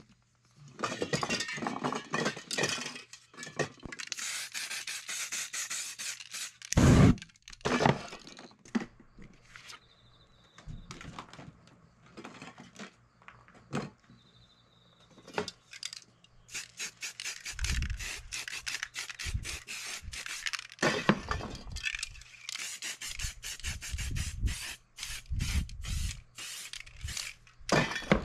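Aerosol spray-paint cans hissing in repeated bursts of a second or more, with paper stencils rubbing and scraping against the board and a loud thump about seven seconds in.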